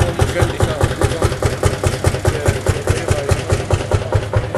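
Vintage tractor engine idling with a steady, rapid pulsing beat.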